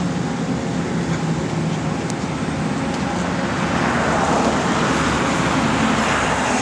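Road traffic noise: a steady rush of vehicles on a road, with one passing vehicle's noise swelling and fading over the second half.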